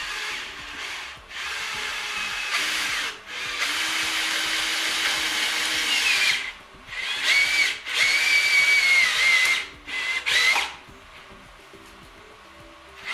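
Cordless drill-driver run in about six bursts, its motor whine wavering and dipping in pitch under load as it drives a screw into the wooden door frame. It stops about ten and a half seconds in.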